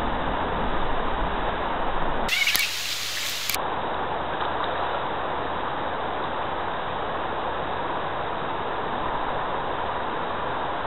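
Steady rush of a shallow creek running over rocks, with a short high call about two seconds in.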